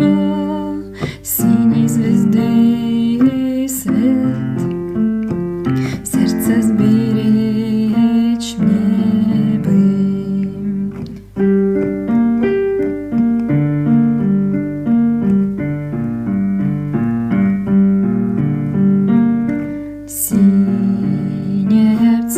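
Instrumental break of a song played on piano or electric keyboard, a steady run of sustained chords and melody notes.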